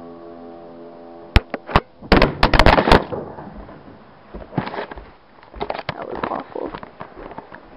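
The last piano chord dies away, then sharp knocks and a burst of clatter about a second and a half in, followed by scattered bumps and rubbing: handling noise as the recording camera is picked up and moved.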